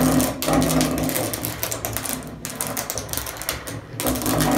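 Hand-held grinder running against metal and throwing sparks: a loud, harsh grinding whine with a steady hum beneath, broken briefly twice.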